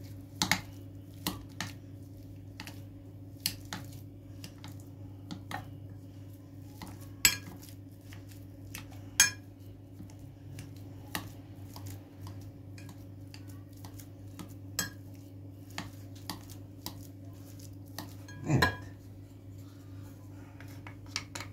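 Metal potato masher working boiled potatoes in a bowl, its wires clinking and knocking against the bowl at an irregular pace, with a heavier knock near the end. A steady low hum runs underneath.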